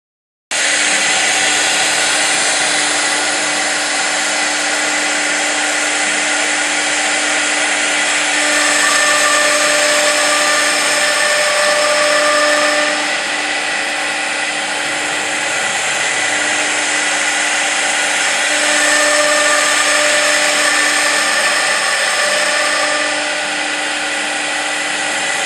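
Four-spindle CNC router running: a steady spindle whine over cutting noise, starting abruptly about half a second in and swelling louder twice as it works a wood panel.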